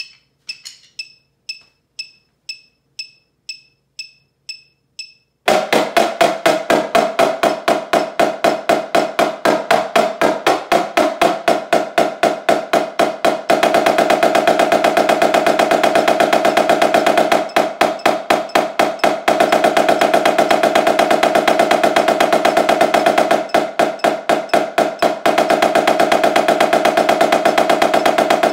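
A metronome clicks twice a second at 120 beats per minute, then about five seconds in a Yamaha marching snare drum comes in loud with fast, dense sticking. Several long stretches have the strokes running together into rolls.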